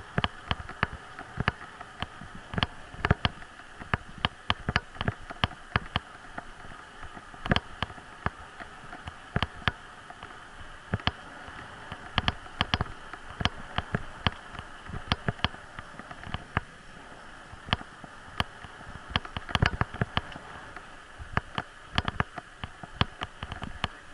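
A bicycle rolling along a paved path: irregular sharp clicks and knocks, often several a second, as the bike rattles over bumps, over a steady hum of rolling.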